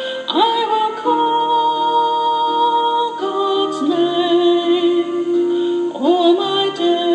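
Slow sung psalm: a voice holding long notes with vibrato, sliding up into a new phrase near the start and again about six seconds in.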